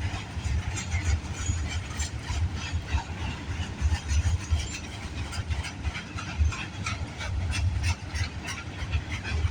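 Freight train cars, some loaded with logs, rolling past: a steady deep rumble of the wheels with a rapid, irregular patter of clicks and clacks on the rails.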